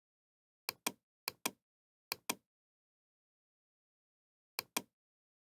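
Computer mouse button clicked four times, each click heard as a quick pair of sharp ticks; three clicks come in the first two and a half seconds and the last near the end.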